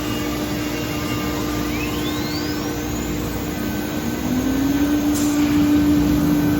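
CNC router spindle spinning up: a high whine rises steeply, then a lower tone climbs and settles into a steady hum as the machine gets louder, over continuous machine noise. A short click comes about five seconds in.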